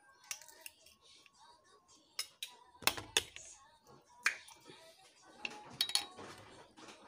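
Scattered sharp knocks and clicks of kitchen things being handled, several close together about three seconds in and again near six seconds, over faint background music and voices.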